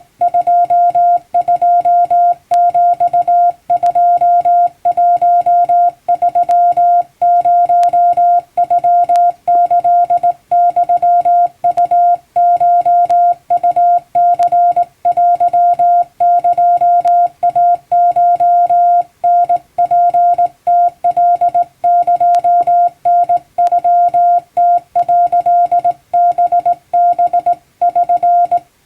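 Hand-keyed Japanese Wabun Morse code: a single steady mid-pitched tone switched on and off by a telegraph key in a run of short and long marks, stopping just before the end.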